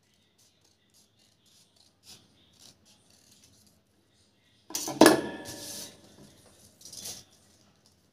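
Tailor's shears snipping through a paper pattern with quiet ticks, then set down on the table with a loud ringing metallic clatter about five seconds in, followed by a shorter rustle of paper about two seconds later.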